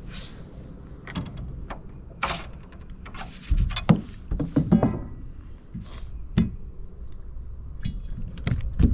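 Scattered knocks, thunks and clicks of a bass being handled on a measuring board in a boat, busiest in the middle, with a couple of brief rustles.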